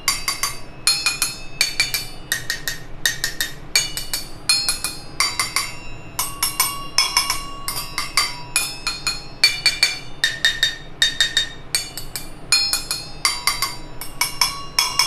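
A steel spoon tapping a row of stainless-steel tumblers, each filled with a different amount of water, in quick runs of clinks at about two to three a second. Each tumbler rings at its own pitch, set by its water level.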